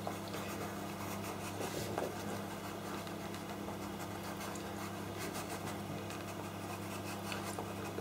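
Soft, scratchy strokes of a pastel pencil on pastel paper as it shades a drawn branch, over a steady low hum.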